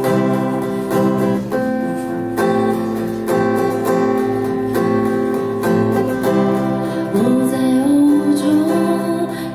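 Acoustic guitar strumming steady chords, with a voice starting to sing over it about seven seconds in.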